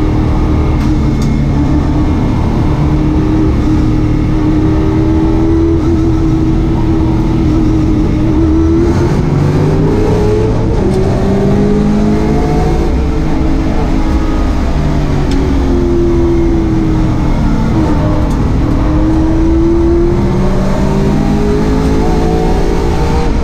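Holden Commodore race car's engine heard from inside the stripped cabin, running hard at racing speed. Its pitch holds high, then falls and climbs again several times as the car brakes, changes gear and accelerates out of corners.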